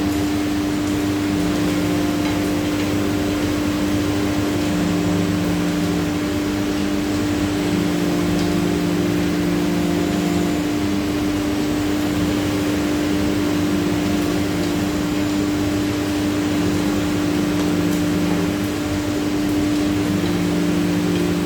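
CNC router spindle running at a steady, constant pitch while cutting a GRC panel, with a lower hum that starts and stops every few seconds over an even hiss of cutting noise.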